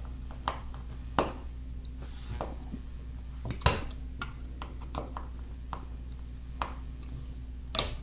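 Hand screwdriver tightening screws into a plastic keypad back plate on a wall: scattered small clicks and taps, the sharpest one about three and a half seconds in, over a steady low hum.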